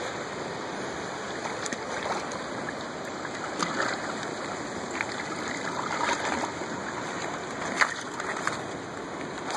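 Creek water cascading and rushing over rocks: a steady wash with a few brief splashes.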